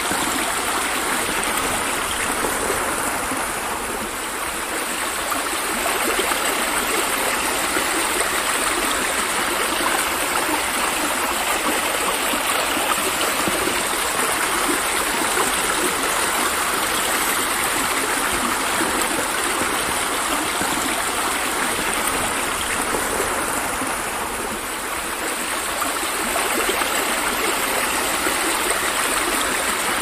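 Steady rain falling onto a river's surface: an even rushing hiss of water that eases briefly twice, about four seconds in and again some twenty seconds later.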